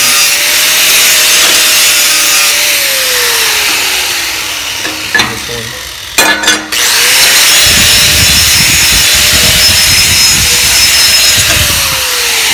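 DeWalt angle grinder with a braided wire wheel brushing aluminum angle to strip oxide before TIG welding. The motor runs at a steady whine, spins down about three seconds in, a short clatter follows, then it spins back up and the wheel scrubs the metal with a rough rasping rumble before spinning down again near the end.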